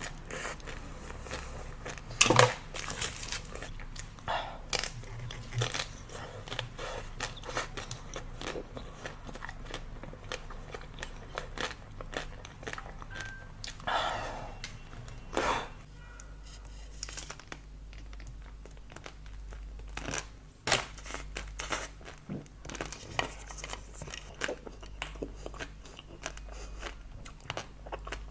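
Ice cream being eaten close to the microphone: crisp bites and crunching, with crinkling and tearing at times. The sharpest bite comes about two seconds in.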